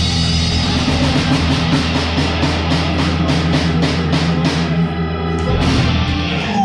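Live blues-rock band with electric guitars, bass and drum kit playing hard over a steady drum beat of about four hits a second. A little over five seconds in, the held low notes drop out and a few last hits follow as the song ends.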